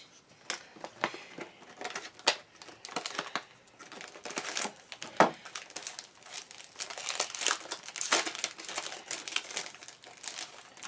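Packaging crinkling and tearing as it is cut and pulled off a small boxed wax-seal stationery set, a run of irregular crackles and rustles with a sharper snap about halfway through.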